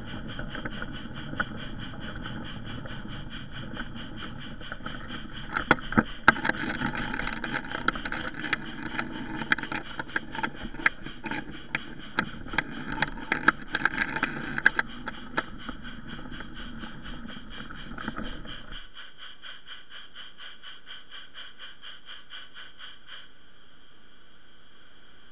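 Garden railway train running along the track, heard from on board a wagon: a steady mechanical whine with a fast ticking, and a run of sharp clacks of the wheels over rail joints in the middle. About nineteen seconds in the rumble cuts off as the train comes to a stop, leaving a fainter steady whine.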